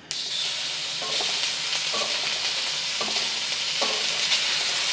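Sliced raw bacon sizzling in a hot, seasoned wok, the hiss starting suddenly as the bacon goes in and then holding steady, with a few faint taps partway through.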